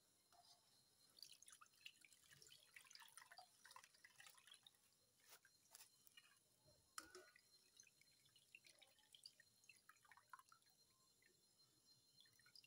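Faint dripping with small scattered clicks: water draining from a tilted steel pot from under a set layer of coconut oil.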